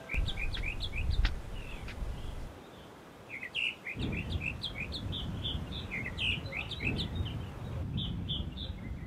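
A bird chirping over and over in short high calls, several a second, with a pause of a second or so near the middle. A low rumble runs underneath, dropping away during that pause.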